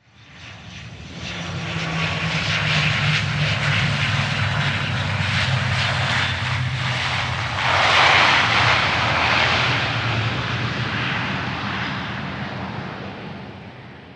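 Airplane landing: the engine and air-rush noise build up over about two seconds, swell to a louder rushing peak about eight seconds in, then fade away near the end.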